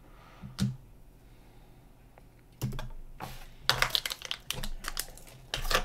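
Small plastic kit parts and packaging being handled by hand: a single click about half a second in, then from about two and a half seconds a quick run of clicks and rustles.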